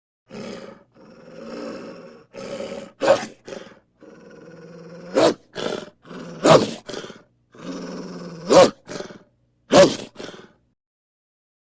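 A wolf growling: a run of rough, rumbling growls broken by five short, loud snarls, before it falls silent near the end.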